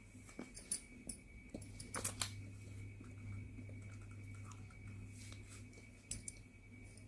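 Pieces of roasted multani mitti (Fuller's earth clay) being bitten and chewed: scattered crisp crunches and crackles, a cluster about two seconds in and a sharp one near the end, over a faint steady hum.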